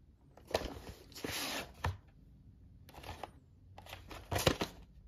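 A VHS cassette handled in and slid out of its cardboard sleeve: card and plastic scraping and rustling in three bursts, with a few sharp clicks.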